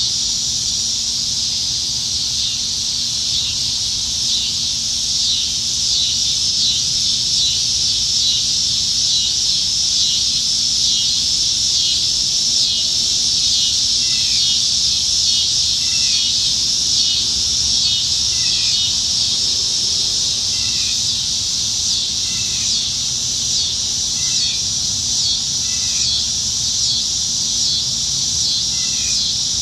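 Chorus of cicadas in the trees, a loud continuous high buzz with a fine pulsing texture. From about halfway in, short chirps repeat every second or two over it.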